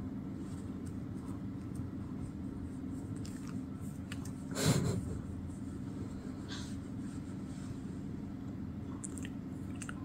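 Domestic cat purring steadily while being scratched under the chin, with one short louder noise about halfway through.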